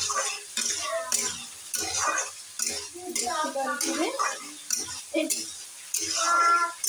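Steel spatula scraping and knocking against a steel kadhai, repeatedly, as fried potatoes are stirred through thick aloo dum masala, with the masala sizzling as it cooks down.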